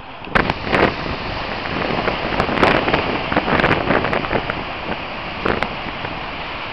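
Outdoor wind buffeting the microphone over a steady rush of surf, swelling in gusts, with a few short sharp crackles.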